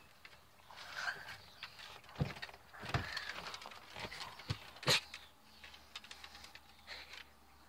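Light taps and clicks on weathered wooden porch boards as small dogs' paws move over the deck, with a few heavier thumps, the loudest about five seconds in.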